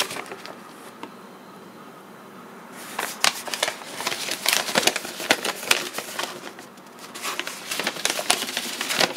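Paper sheets rustling and crackling as they are handled and leafed through: a quick run of crisp rustles and clicks starting about three seconds in, easing briefly near seven seconds and then going on.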